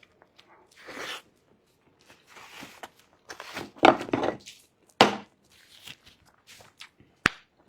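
Close-miked eating sounds: a person biting and chewing food in irregular noisy bursts, loudest about four seconds in, with a sharp click near the end.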